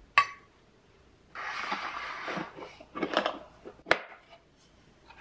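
A glass food container set down on a countertop with a sharp click, then about a second of sliding, rustling noise and a few light knocks as wooden bento boxes and their lids are handled, with a sharp wooden clack about four seconds in.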